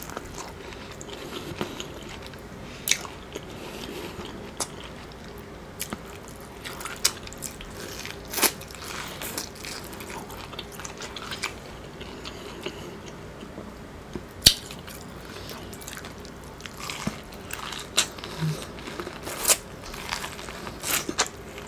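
Close-miked bites into Mexican street corn on the cob, kernels crunching off the cob, with chewing between bites. The crunches come irregularly, one sharper than the rest about two thirds of the way through.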